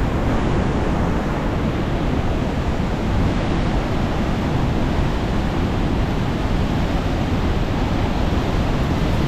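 Steady roar of fast-flowing whitewater from a river and falls running high with snowmelt.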